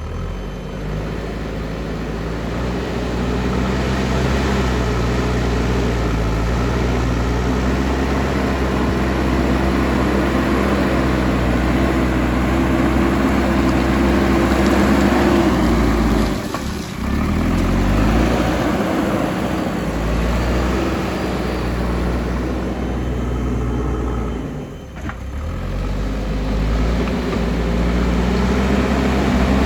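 Backhoe loader's diesel engine running hard under load, its pitch rising and falling as it works, with two brief drops in engine note, about 17 and 25 seconds in.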